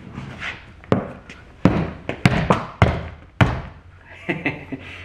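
DEWALT rolling tool bag being tipped on its casters and set down on a hard floor while its telescoping handle is pushed down: a string of about five sharp knocks and thuds.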